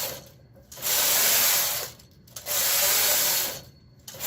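Knitting machine's K carriage being pushed back and forth across the needle bed, knitting rows: a rushing hiss on each pass, about a second long, with short pauses between passes. Two full passes, with one ending just as the sound begins and another starting near the end.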